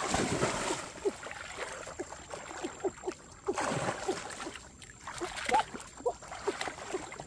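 A person wading and lunging through shallow muddy water, arms plunging in: loud splashes at the start and again about three and a half seconds in, with sloshing, dripping and bubbling between.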